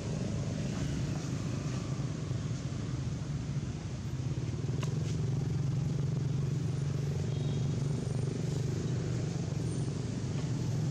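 A motor vehicle's engine running steadily with a low drone, a little louder from about four seconds in.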